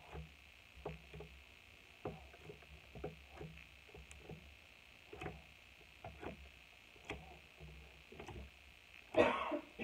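A plastic comb poking and pressing into slime on a wooden tabletop: faint, soft taps about once a second. A louder, longer noise comes just before the end.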